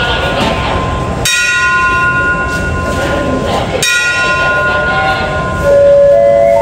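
Station departure bell struck twice, about two and a half seconds apart, each stroke ringing on and slowly fading: the signal that the train is about to leave. Near the end a loud, steady horn-like tone starts up.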